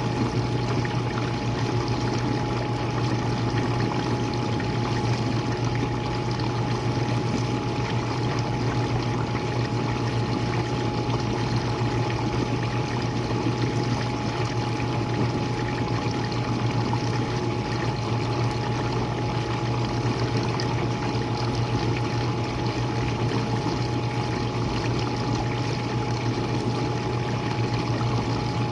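Jenn-Air dishwasher running a wash cycle, heard from the bottom of the machine: a steady low pump hum under the continuous rush of water spraying and draining inside, with a thin steady whine above it.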